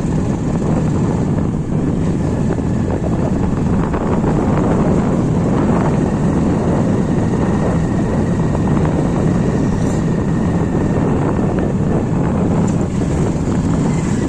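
Steady engine and road noise of a vehicle on the move, a constant low rumble with no breaks.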